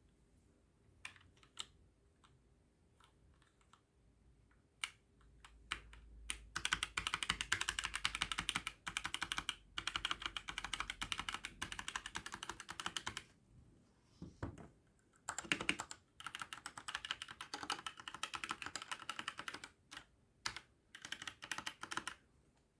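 Typing on a Trust GXT 865 Asta mechanical keyboard with red linear switches. It starts with a few scattered keystrokes, then goes into two spells of fast continuous typing with a short pause between, and ends with a few single key presses.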